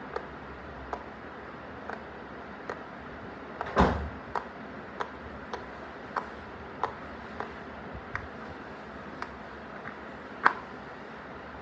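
Silicone pop-it fidget toy bubbles being pressed one at a time, giving short sharp pops roughly every half-second to second, with two louder pops about four seconds in and near the end. They play over a steady hiss from a running fan.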